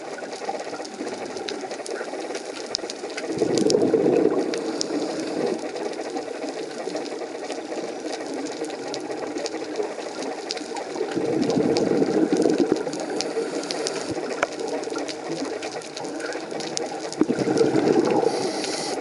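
Scuba diver's exhaled air bubbling out through the regulator three times, about every seven seconds, heard underwater. Between breaths there is a steady faint crackle of small clicks.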